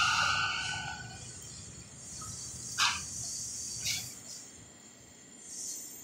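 Departing R179 subway train's rumble dying away as it pulls out of the station. Its motor whine fades out within the first second, leaving a low rumble, with two short sharp clicks about a second apart near the middle.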